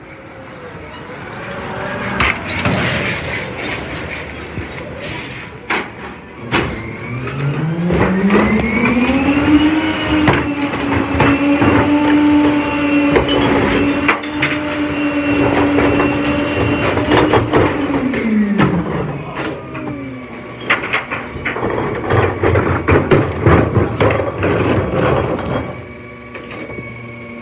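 Rear-loader garbage truck's engine speeds up, holds a higher speed for about eight seconds while the cart tipper lifts and empties a wheeled recycling bin into the hopper, then drops back to idle. Clattering and banging of the bin and its contents come before and after.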